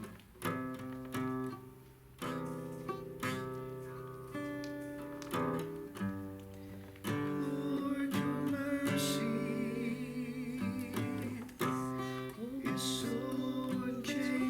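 Acoustic guitar music: plucked and strummed notes, with a held, wavering melody line coming in about halfway through.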